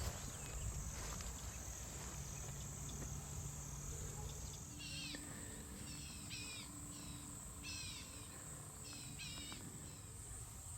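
Steady high-pitched drone of a night insect chorus, crickets or katydids. From about halfway through, a run of short chirping calls rises over it.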